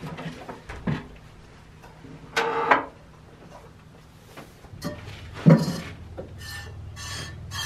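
Goat being hand-milked into a small stainless steel cup on a wooden milking stand: the cup clanks down, then milk squirts hit the metal in a quick rhythm, about three a second. A short pitched call sounds about two and a half seconds in.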